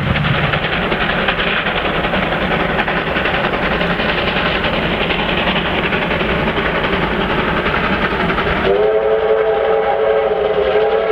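Double-headed R class Hudson steam locomotives passing close at speed: a dense, loud rush of exhaust beats and running gear. About nine seconds in, after a cut, a steam whistle sounds a long chord of several tones, sliding up slightly as it starts.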